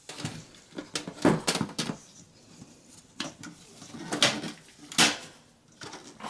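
Plastic front bezel of a Dell OptiPlex 990 mini tower being fitted back onto the steel case: about ten irregular sharp plastic clicks and knocks as it is handled and pressed into place.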